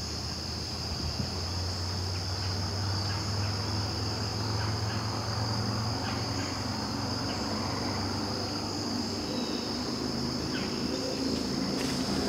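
Steady high-pitched insect chorus in the woods, with a low hum underneath for much of the time that fades about nine seconds in. A few faint rustles and clicks come near the end.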